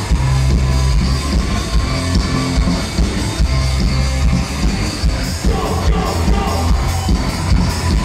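Loud live rock band playing with heavy bass and a steady drum beat, recorded from within the concert audience.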